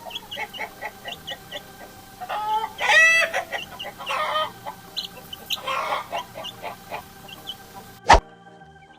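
Chickens clucking in short repeated calls, with louder bursts of calling about two and a half seconds in and again around four and six seconds. Near the end a sharp click cuts the sound off.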